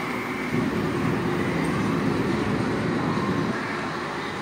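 Steady din of go-karts running around an indoor concrete track, mostly a low rumble. It gets a little louder about half a second in and eases off near the end.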